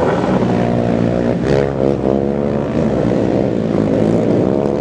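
Several racing ATV quads' engines revving together as they pass, the pitch rising and falling as riders accelerate and back off, with a sharp rev-up about a second and a half in.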